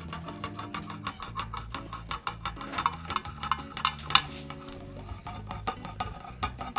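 Victorinox Swiss Army knife can opener chopping its way around a steel can lid: a rapid run of sharp metallic clicks and crunches, several a second, each stroke levering the blade down through the tin.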